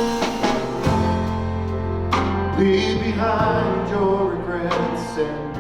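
Worship band music from a gospel song, playing between sung lines, with sustained bass notes under it.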